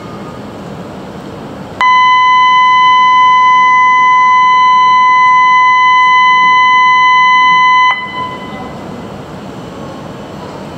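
Shinkansen platform departure signal: one loud, steady electronic buzzer tone held about six seconds and cut off suddenly, warning that the train's doors are about to close for departure.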